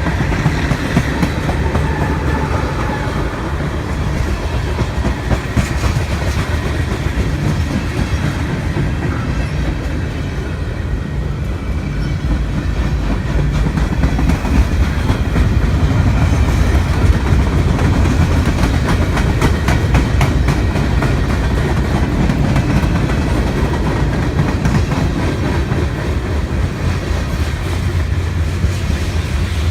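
Train passing close by: a steady heavy rumble, with the wheels clicking rapidly over rail joints through the second half.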